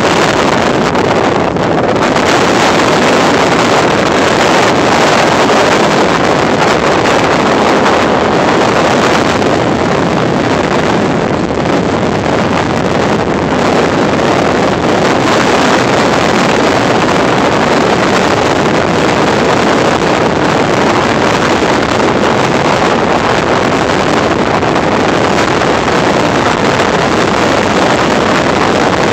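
Wind blowing across a phone's microphone: a loud, steady rushing that drowns out everything else.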